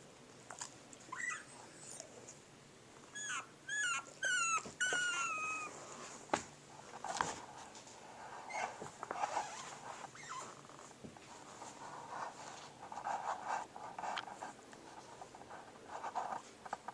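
Puppy whimpering: a run of short, high-pitched cries that fall in pitch, about a second to six seconds in, followed by scuffling and rustling with scattered clicks.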